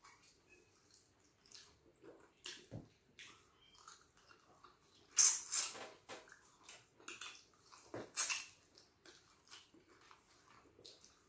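Close-up eating sounds from a meal of fufu, stew and fried fish: irregular wet mouth smacks and chewing, with a louder cluster of smacks about halfway through and another a little later.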